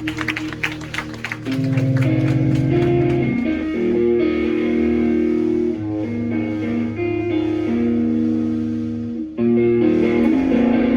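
Instrumental band music without singing, led by guitar over bass: quick strumming at first, then held chords that change every second or so, with a fresh entry about nine seconds in.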